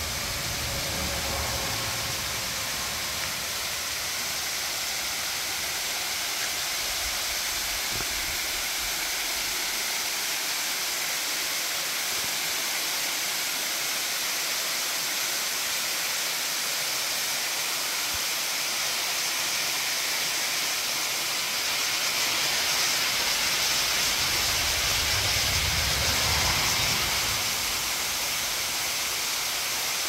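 Small waterfall cascading down a rock face in thin strands at low flow: a steady hiss and rush of falling water. A low rumble swells in for a few seconds about three quarters of the way through.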